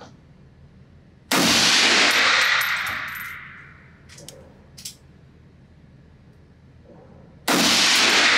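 Two shots from a Nemo Arms Battle Light Rifle, an AR-15-style rifle chambered in 6mm ARC, about six seconds apart. Each shot echoes and dies away over a second or two in the indoor range. A few light metallic clinks come between the shots.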